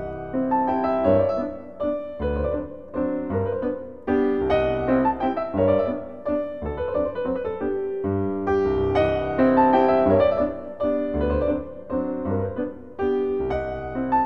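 Piano music: a steady run of struck notes over recurring bass notes.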